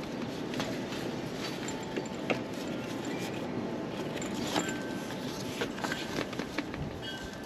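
Scattered light clicks and taps of straps and fasteners being hooked up on a plastic rear windshield of a UTV, over a steady background hiss.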